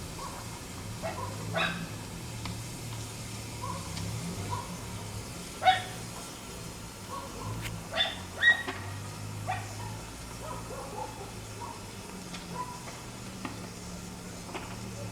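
A dog barking in short, separate barks, with a few louder ones near the middle, over a low steady hum.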